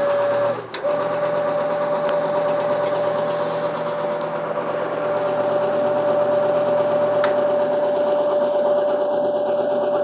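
White-Westinghouse electric clothes dryer energized for a heating-circuit test, giving a steady mechanical hum with a strong high tone in it. It starts abruptly, breaks off briefly just after, then runs evenly with a few faint clicks while the exposed heating coil heats up.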